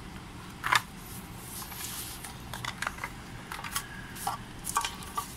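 Metal-cased 32650 lithium cells clicking and knocking against a black plastic project box as they are lifted out and handled: a string of light, irregular clicks, the loudest a little under a second in.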